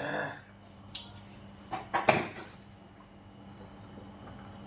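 A short muffled sound right at the start, then a few sharp knocks and bumps, the loudest about two seconds in, as a man rises from a plastic chair and leans over a table set with bowls and plates.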